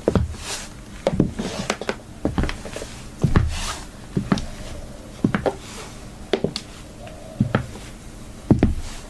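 High heels clicking on a hard floor, about one step a second, some heel strikes followed by a lighter toe tap, with a few short scuffs.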